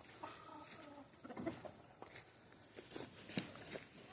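Hens softly clucking in a nesting box, with a short faint call early on and scattered light clicks and scratches.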